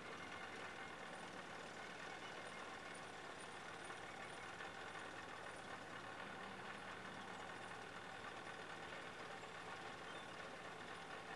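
Steady hum of an idling engine, unchanging in pitch and level.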